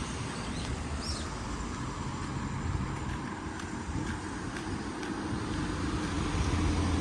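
Steady road-traffic noise: vehicle engines and tyres rumbling, growing louder toward the end as a vehicle draws near.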